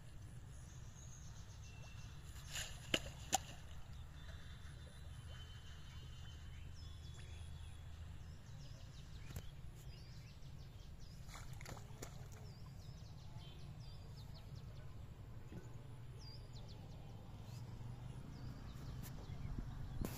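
Faint outdoor ambience: a steady low rumble with small birds chirping now and then, and a few light clicks.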